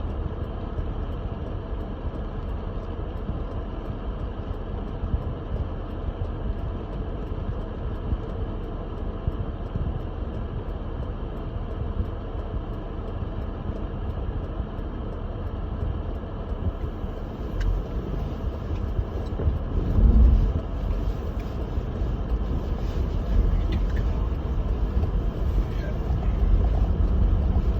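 Steady low rumble of a Lexus GX470 driving on snow-covered road, tyre and 4.7-litre V8 engine noise heard from inside the cabin. A louder low thump comes about twenty seconds in, and the noise grows a little louder near the end.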